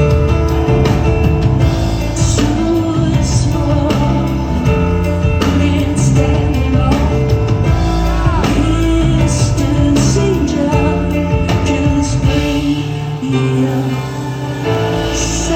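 Live band music: a woman singing over sustained bass notes and keyboards in a pop-rock song.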